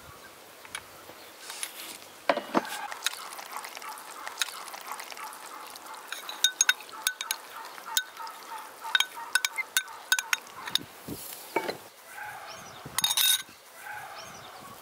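A metal spoon clinking and scraping against a glass dish, with a run of quick sharp taps in the middle, as soft butter is scraped out into a bowl of flour.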